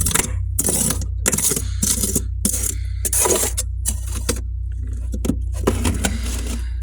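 Freezer frost being scraped and crunched in quick, irregular strokes, over a steady low hum.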